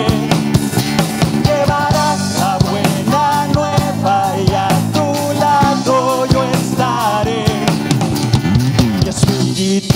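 Live band playing a steady beat: drum kit, bass guitar and strummed acoustic guitar, with a man singing in Spanish at the microphone.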